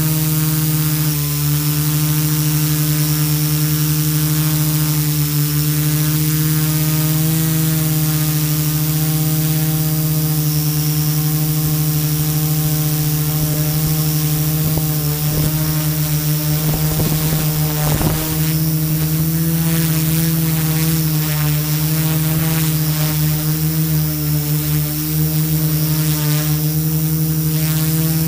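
Multirotor drone's electric motors and propellers humming steadily, heard through the onboard camera. About halfway through, the pitch sweeps up and down for a few seconds as the motor speeds change, then settles again.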